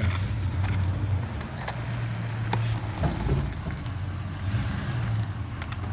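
Pickup truck engine idling with a steady low hum, and a few sharp clicks and knocks from a stunt scooter being pushed along the asphalt.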